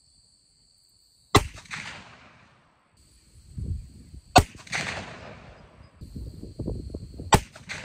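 Three muzzleloader rifle shots about three seconds apart, each a sharp crack followed by a fading echo. The rifle is loaded with 70 grains of loose Blackhorn 209 powder behind a 245-grain PowerBelt bullet and is set off by Winchester standard 209 shotgun primers.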